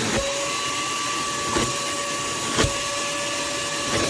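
Armor All 1.5-gallon wet/dry shop vacuum running steadily with a constant whine, with three brief knocks.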